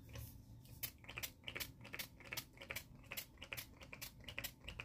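Fine-mist pump bottle of Mario Badescu facial spray pumped over and over in quick succession: a long run of short, hissy spritzes, several a second.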